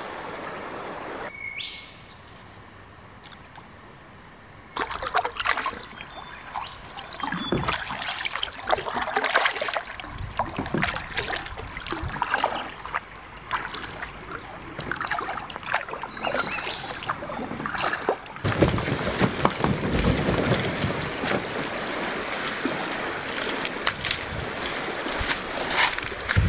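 Kayak paddling: paddle blades splashing and water sloshing around the hull, with scattered light knocks. A bird calls a few times in the quieter first seconds.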